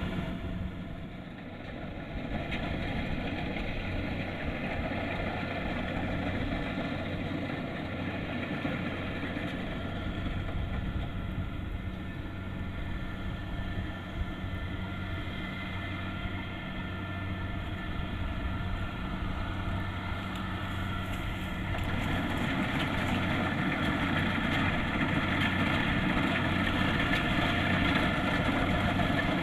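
Kubota DC-70 Plus rice combine harvester's diesel engine and threshing machinery running steadily, getting louder about two-thirds of the way through.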